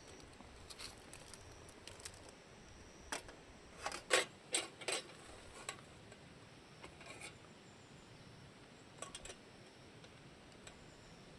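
Scattered light clicks and knocks of small objects being handled, bunched together from about three to five seconds in.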